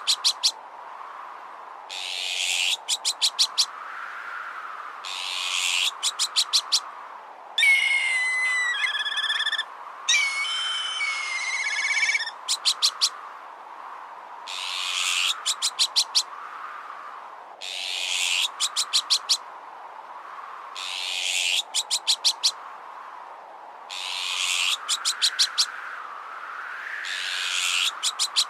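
Bird-repellent sound mix: harsh rasping azure-winged magpie alarm calls repeat about every three seconds, each ending in a quick rattle of clicks, over a wavering whoosh of wind. Between about eight and twelve seconds in, a run of clear whistled calls stepping down in pitch comes in, like a black kite's call.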